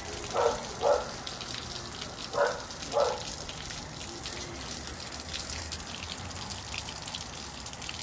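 Steady rain falling and dripping. An animal calls four times in two quick pairs during the first three seconds, and these calls are the loudest sounds.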